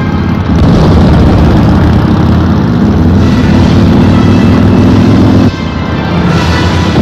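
Loud, low engine-like rumble from a film soundtrack, with a drone that slowly rises in pitch and cuts off abruptly about five and a half seconds in.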